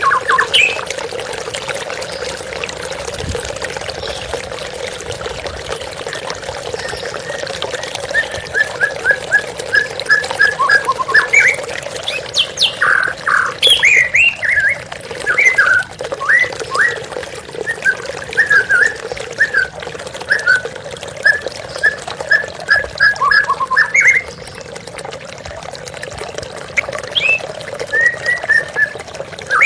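Songbird chirps and short calls, often in quick runs of repeated notes, over a steady sound of running water. The bird notes thin out for a couple of seconds near the end.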